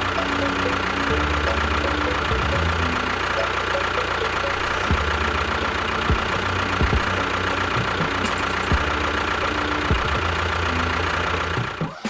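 A small motor of a DIY miniature construction vehicle runs steadily with a constant whine. Its low hum comes and goes every second or so, and a few sharp clicks sound through it.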